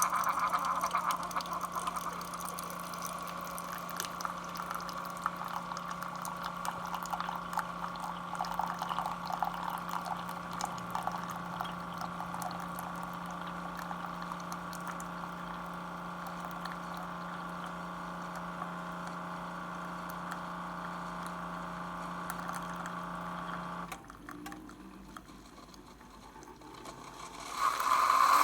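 Keurig single-serve coffee maker brewing: its pump hums steadily while coffee streams into the mug, then cuts off abruptly about 24 seconds in as the brew finishes. A brief louder sound comes near the end.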